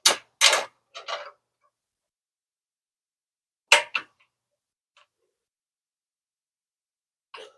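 Short metallic clicks and clanks from a wrench working the winch's mounting bolts and nuts: three within the first second and a half, then two more about four seconds in.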